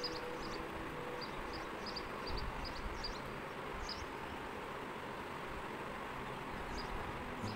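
Steady background noise with faint, short high-pitched chirps, several in the first half and a few more near the end.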